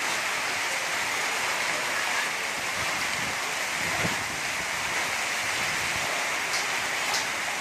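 Heavy rain pouring steadily onto hard tiled ground, an even hiss of water with a few faint ticks near the end.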